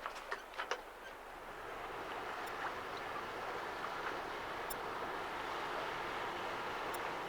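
Small sailing boat under way: water rushing along the hull and wind, a steady rush that grows louder from about two seconds in. There are a few sharp clicks near the start.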